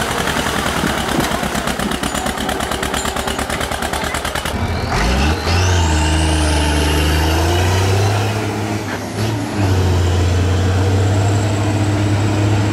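A Zetor 25 tractor's two-cylinder diesel engine pounding under load in mud, its firing pulses coming fast and even. About four and a half seconds in, a large tractor's diesel takes over, running hard under heavy load with a high whistle rising in pitch, dipping briefly about nine seconds in before pulling again.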